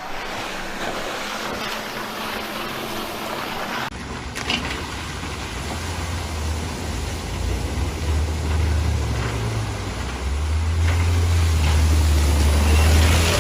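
A vehicle crossing a flooded ford, with water rushing and a low engine drone. The sound changes abruptly about four seconds in, and the engine grows louder toward the end.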